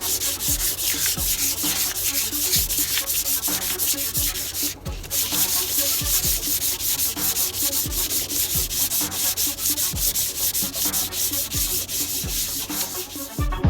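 180-grit sandpaper, used wet, rubbed by hand over a rusty aluminium scooter exhaust pipe in rapid, rhythmic back-and-forth strokes, with a brief pause about a third of the way in.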